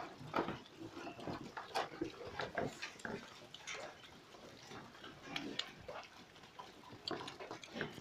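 Piglets grunting in short, irregular calls, busiest in the first few seconds.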